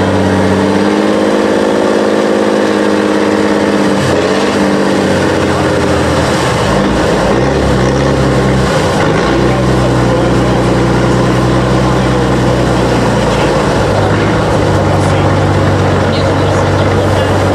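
Tatra 813 8x8 truck's diesel engine working under load as the truck climbs over a dirt mound. Its revs shift up and down in steps, with a deep, steady note.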